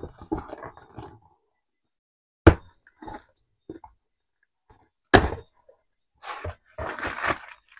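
Two sharp knocks about two and a half seconds apart, then a second or so of rustling near the end: objects being handled and set down on a hard surface.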